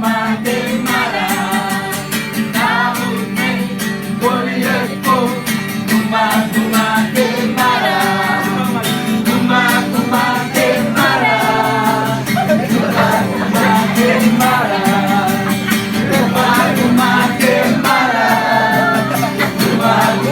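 Music: singing over a strummed guitar accompaniment.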